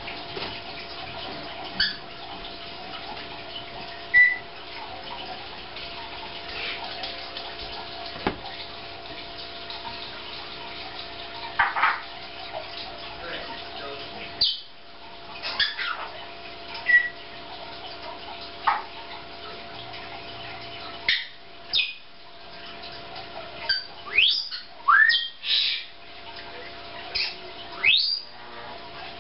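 Short high chirps and squeaks, a few in the first half and many in quick succession in the second half, over a steady hum.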